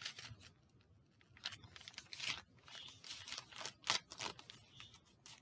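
Packaging being handled: faint crinkling and rustling with scattered light clicks and taps.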